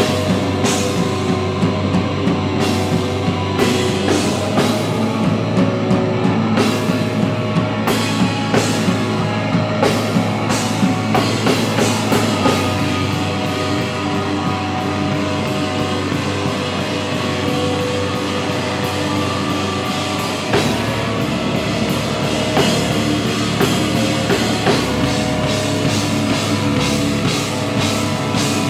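Live rock band playing loud, electric guitar over a drum kit with frequent cymbal and drum hits; the drumming is busiest in the first dozen seconds and the song moves into a new section about two-thirds of the way through.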